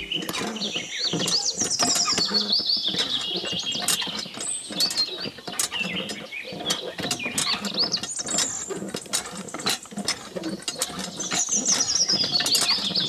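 Handmade miniature hand pump being worked by its thin metal wire handle, giving a run of irregular mechanical clicks and creaks as the handle rocks up and down. Birds chirp in the background.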